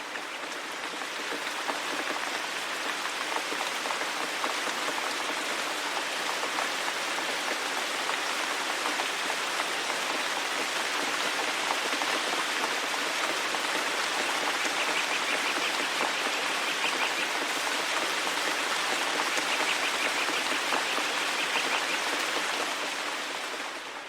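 Steady rain falling in a forest, an even hiss of drops, fading in over the first two seconds. A faint, high, rapid trill sounds twice in the second half.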